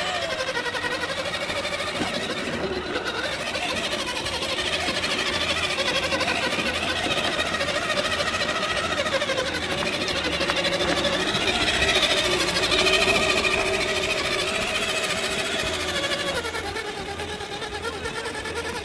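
JLB Racing JLB4 1/8-scale RC crawler's electric motor and geared drivetrain whining as it drives, the pitch rising and falling with the throttle. It is loudest about twelve seconds in and eases off near the end.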